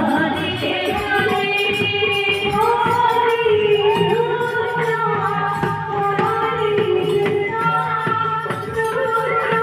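Devotional kirtan music: singing in long held, wavering lines over a steady beat of hand drum and small jingling cymbals.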